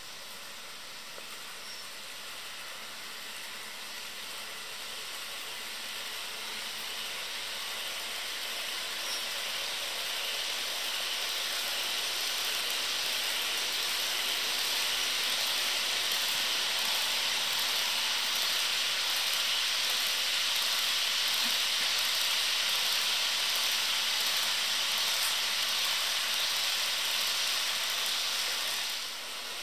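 HO scale model freight train rolling along the track, its wheels and cars making a steady hiss that grows louder through the first half as the train comes closer, then falls away near the end.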